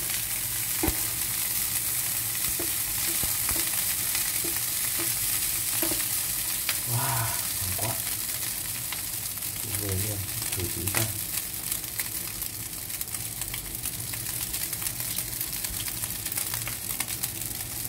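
Egg fried rice with pork sausage sizzling in a frying pan while a wooden spatula stirs and turns it, with a steady hiss and occasional sharp clicks of the spatula against the pan.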